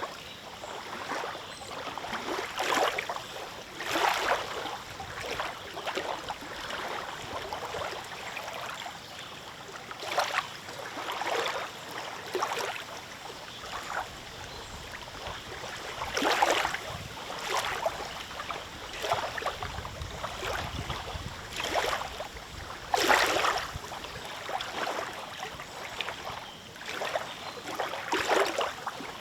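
Small wind-driven lake waves lapping and splashing, an irregular splash every second or two, with a brief low rumble of wind about twenty seconds in.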